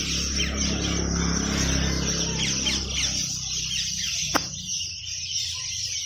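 Many caged parakeets chirping and calling over one another in quick, short falling notes. A low rumble sits under the first three seconds, and there is a single sharp click about four and a half seconds in.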